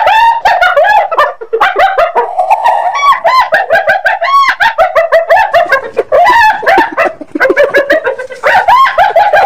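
Spotted hyena giggling: a fast, unbroken run of short, high yelping notes that rise and fall, several a second.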